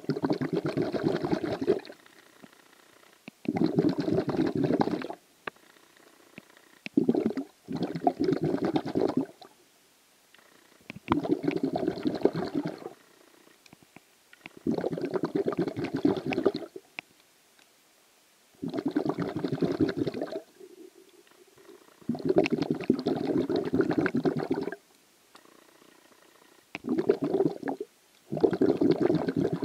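A diver's breathing heard underwater: bursts of bubbling and gurgling about every three to four seconds, with quiet gaps between breaths.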